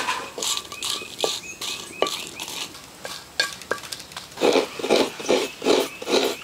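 A metal spatula scrapes and clicks against a clay pan as dry red chillies are stirred while roasting. From about four and a half seconds in, a coconut half is rasped on a traditional coconut scraper in quick, regular strokes, about three a second.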